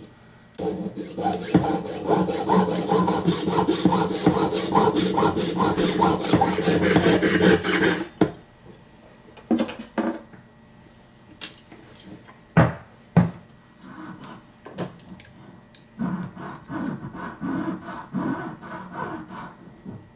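Jeweler's saw cutting through a cast gold sprue held on a wooden bench pin, with rapid even back-and-forth strokes for about seven seconds. After that come a few scattered clicks and knocks, and lighter strokes near the end.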